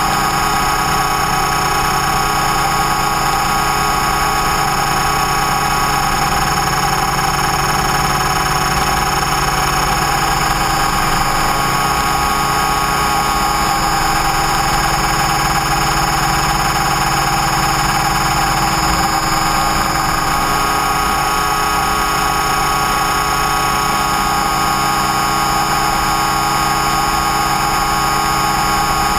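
Align T-Rex 550E electric RC helicopter heard through its onboard camera: a steady mechanical whine from the motor and drivetrain over a hum and noise from the rotors. The pitch dips slightly a few times.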